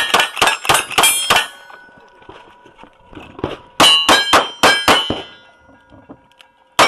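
Lever-action rifle shots fired rapidly, each with the clang of the steel plate target it hits ringing on. After a pause of about two seconds, a revolver fires about five quick shots, the steel plates ringing with each hit. Another shot begins at the very end.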